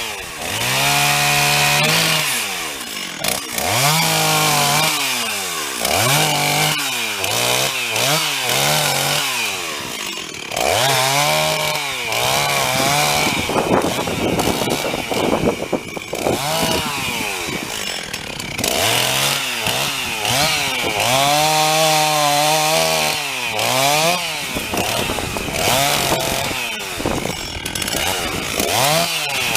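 Two-stroke chainsaw cutting through a blown-down white pine, the engine revving high and dragging down in pitch again and again as the chain bites into the wood.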